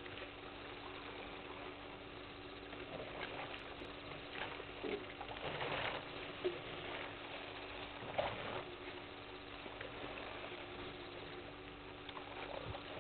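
Faint night ambience at a waterhole: a steady low hum under a soft hiss, with a few scattered soft splashes and a couple of short chirps.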